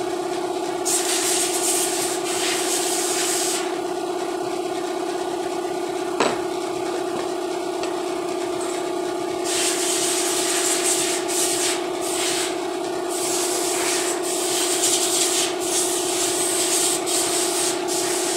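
Spells of rubbing hiss from hand work on compressor parts, one from about one to three and a half seconds in and a longer one from about nine and a half seconds on, over a steady hum, with a single sharp click about six seconds in.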